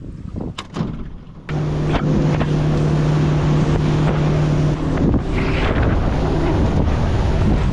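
Motorboat running at speed, with wind buffeting the microphone. The sound jumps up suddenly about one and a half seconds in to a loud, steady engine drone and rushing noise.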